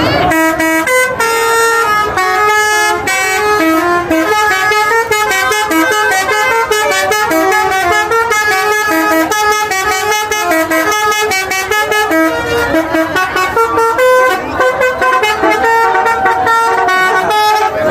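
Bus telolet horn, a set of multi-tone air horns, playing a quick melody of short notes that step up and down several times a second.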